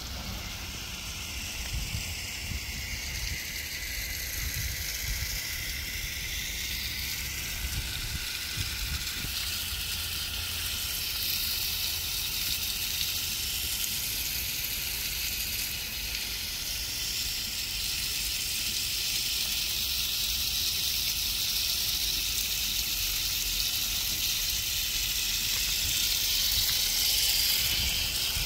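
Pop-up lawn sprinkler heads spraying water: a steady hiss that grows slightly louder toward the end, with a low rumble underneath.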